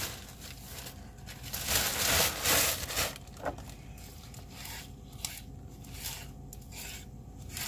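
A plastic bag crinkling loudly for about a second and a half. Then a sharp ceramic knife chops spinach leaves on a cutting board, giving a series of light, separate taps.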